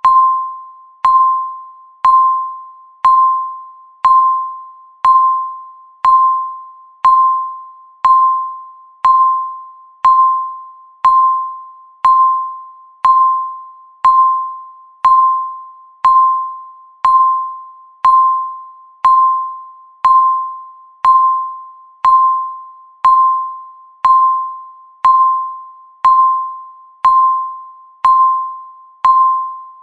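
Countdown timer beep: one short electronic tone near 1 kHz sounding once every second, each fading out before the next, marking off the seconds.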